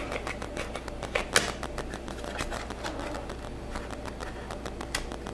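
Scattered light clicks and taps of a plastic motorized phone mount being turned over in the hands, over a low steady hum.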